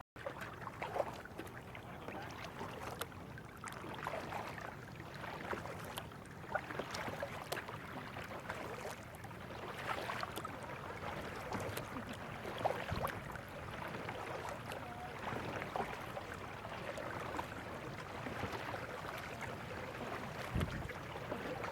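Water splashing and dripping around a kayak as it is paddled, with many irregular small splashes and clicks.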